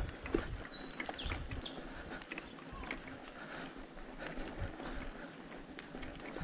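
Mountain bike being ridden over a rough dirt trail: tyres crunching and the bike knocking and rattling irregularly over bumps, with short low thumps of wind on the microphone.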